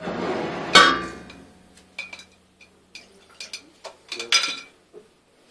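Glassware clinking and knocking on a bench. A short burst of noise opens it, then a loud ringing clink comes just under a second in, followed by scattered lighter clinks and knocks.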